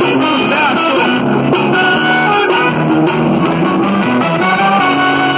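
Instrumental break of a pop song led by guitar over bass, played loud on a Fiat Uno's car sound system.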